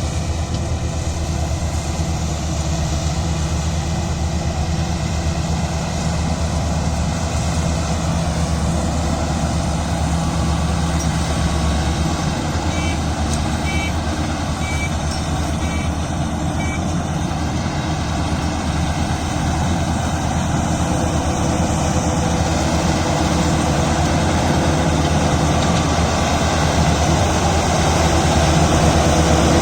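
Combine harvester's diesel engine and machinery running steadily under load, growing slightly louder near the end. A run of short high beeps sounds about halfway through.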